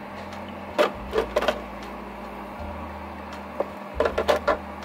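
Irregular sharp clicks and knocks in two small clusters, one about a second in and one near the end, over a steady low hum.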